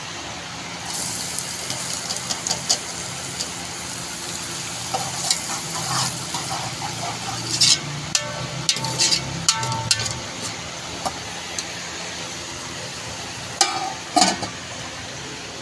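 Sliced onions sizzling steadily in hot oil in an aluminium cooking pot on a gas stove; the sizzle starts about a second in as the onions go into the oil. A metal spoon scrapes and clinks against the pot while stirring, with a couple of metal knocks near the end.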